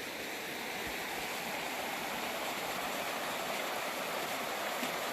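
Mountain brook rushing over rocks: a steady, even water noise.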